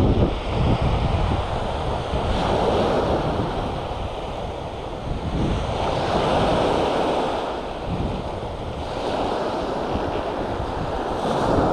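Small waves breaking and washing up the beach, the surf swelling and easing every few seconds, with wind buffeting the microphone.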